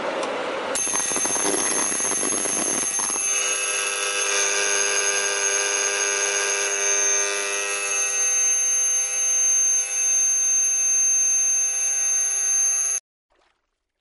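Electronic fire-alarm buzzer on a student-built automatic fire alarm system, sounding a steady, unwavering high-pitched tone. About three seconds in it grows into a fuller, louder multi-tone buzz, then cuts off abruptly near the end.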